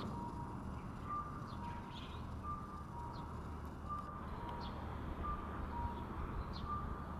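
Distant electronic two-note beeping, a higher beep then a slightly lower one, repeating steadily over a low traffic rumble, with a few short bird chirps.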